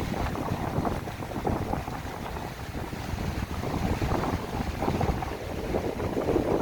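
Strong wind buffeting the microphone in gusts, over the sound of sea waves breaking on the shore.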